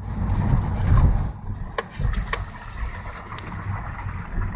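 Car driving on a snow-covered road, heard from inside the cabin: a low rumble of engine and tyres, louder in the first second, with a few sharp clicks.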